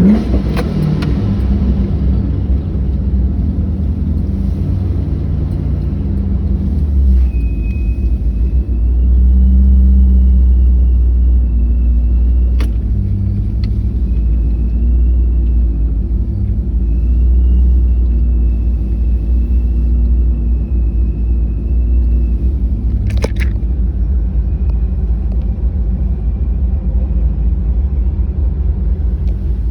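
Cammed Pontiac G8's V8 exhaust rumbling deep and loud at low speed, swelling twice as it is given throttle, with a faint high whine above it and a couple of sharp clicks.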